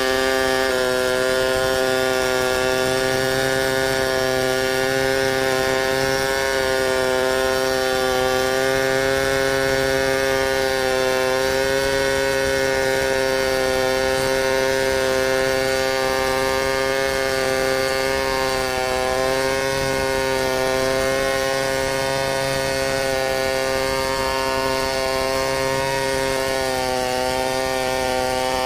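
Chainsaw running steadily under load as it rips lengthwise through a large timber in a freehand milling cut, its engine note dipping slightly a few times.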